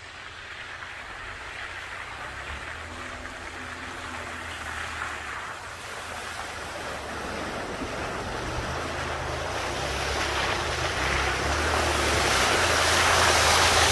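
Nissan pickup truck driving through a muddy puddle, its engine running low under the wash of tires churning and splashing through water and mud, growing steadily louder.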